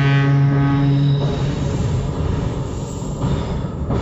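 A train horn sounds one long, steady note that cuts off about a second in, over the continuous rumble of the moving train.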